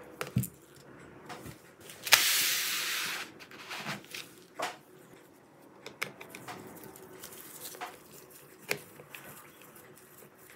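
Small clicks and taps of a screwdriver working the battery screws in a laptop's chassis, with a loud, rushing hiss lasting about a second, about two seconds in.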